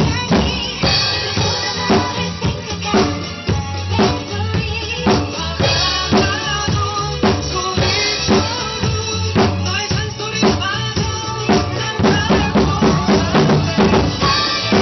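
Acoustic drum kit played in a steady pop groove, kick drum and snare with cymbals, over a recorded pop song playing along.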